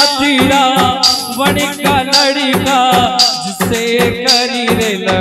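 Instrumental interlude of a live Rajasthani devotional song (bhajan): a wavering melody line over a steady drum rhythm with regular cymbal-like accents.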